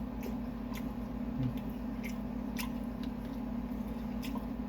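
Close-miked eating sounds: chewing with scattered small wet mouth clicks, over a steady low hum.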